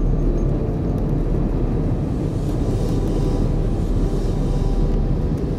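Steady cabin rumble of a Saudi Arabian Airlines Airbus A320-200 rolling on the ground with its engines running, heard from inside the cabin.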